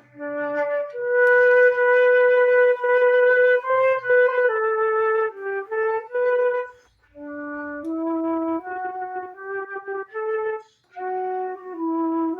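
Jean Baptiste silver-coloured transverse flute played solo: a melody of held and shorter notes, with a short break about seven seconds in before a phrase of lower notes.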